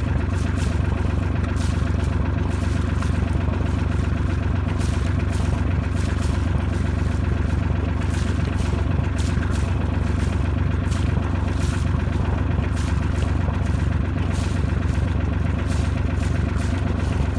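Boat engine running steadily, a deep even drone with faint clicking and clatter over it.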